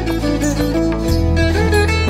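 Background music with a melody over held bass notes and a steady beat of about two strokes a second.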